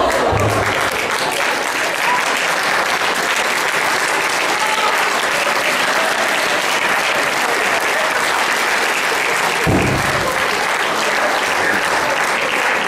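A large audience applauding steadily, with a few shouts of cheering near the start and a dull thud late on.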